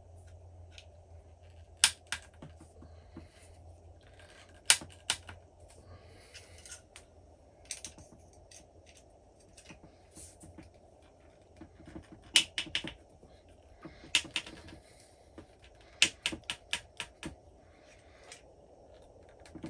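Allen key clicking against a metal sling stud insert as it is turned by hand, a bit at a time, into a wooden rifle stock: scattered sharp clicks at irregular intervals, some in quick pairs or short runs.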